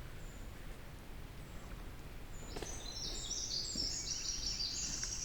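Quiet redwood-forest ambience with a low, steady rumble. About two and a half seconds in, a small songbird begins a long, fast run of high, thin notes that step up and down in pitch.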